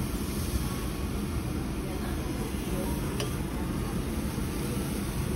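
Steady low rumbling background noise of a yakiniku restaurant, with one sharp click about three seconds in.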